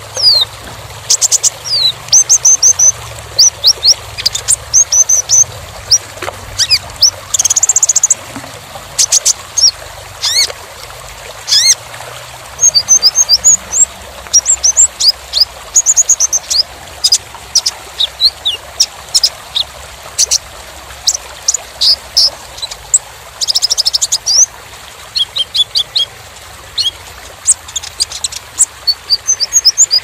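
Kolibri ninja (purple-throated sunbird) singing: a fast, almost unbroken stream of thin, high chirps and short sliding whistles, broken by quick rattling trills.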